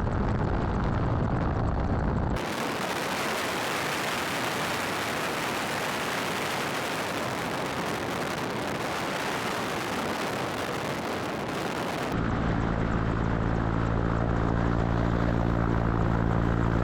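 Military helicopter noise across edited shots: a low rumble, then about two seconds in an even rushing noise, and from about twelve seconds a steady drone with several fixed tones from the engines and rotors.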